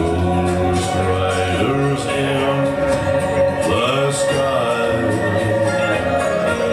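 Live band playing through a club PA, with a male voice singing over drums and amplified guitar.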